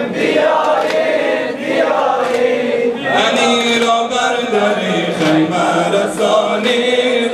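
Group of men chanting a Persian Shia mourning lament (noha) in unison, over a steady beat of hands slapping chests (sineh-zani).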